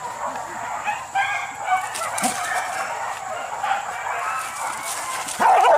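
A pack of hunting dogs yelping and baying together in a continuous overlapping chorus, with a louder burst of yelps near the end.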